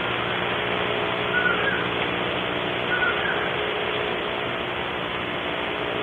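Steady hiss and electrical hum from an outdoor wildlife camera's microphone, with two faint short whistled notes about a second and a half apart.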